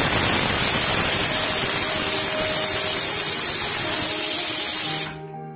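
Stovetop pressure cooker venting steam under its weight valve: a loud, steady, high hiss that stops suddenly about five seconds in.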